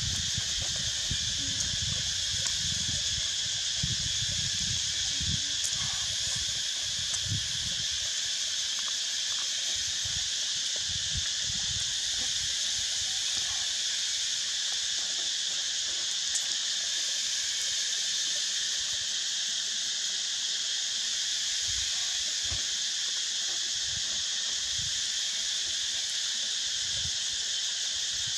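Steady high-pitched chorus of insects, unchanging throughout, with low bumps and rumbles in the first several seconds.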